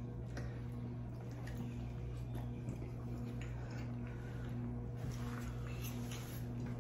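Close-up eating sounds: chewing and soft mouth noises with light clicks of forks on a plate, over a steady low hum.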